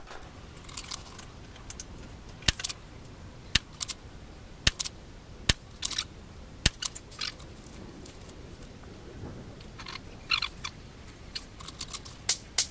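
A series of sharp mechanical clicks and clacks, about one a second for a few seconds, then softer clicking and a quicker run of clicks near the end: hands working the Hammerli Force B1 .22 rifle and its gear, not shots.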